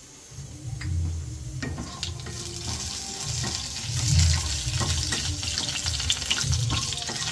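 Urad dal and mustard seeds sizzling in hot sesame oil in a nonstick kadai, with a wooden spatula scraping and stirring through them. The sizzle grows louder from about two seconds in, with scattered pops and clicks over a low hum.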